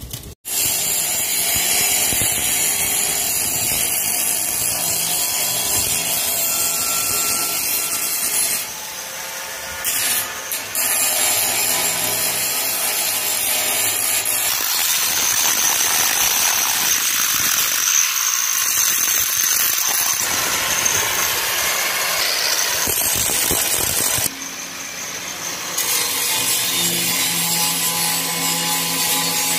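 Angle grinder grinding a weld smooth on a mild-steel round-pipe stair handrail: a steady grind that eases off briefly about 9 seconds in and again about 24 seconds in.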